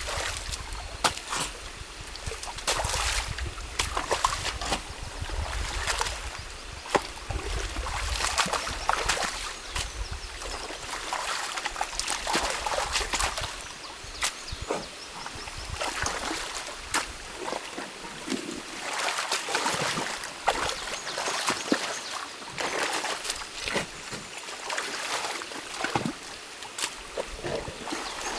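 Stream water trickling and splashing as a beaver dam is pulled apart by hand, with irregular cracks and knocks of sticks and branches.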